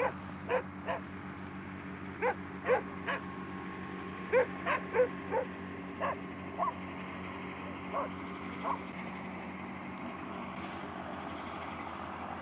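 Dogs barking repeatedly, about fifteen short barks and yips in the first nine seconds, over the steady drone of a hovercraft's engine.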